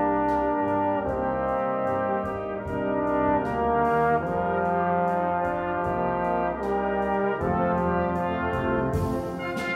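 Brass band playing held chords that change every second or so, with a hiss coming in over the top near the end.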